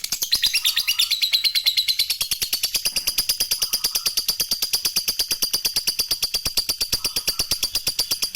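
Lovebird ngekek: a long, unbroken chattering trill of rapid, evenly spaced shrill notes, held without a break.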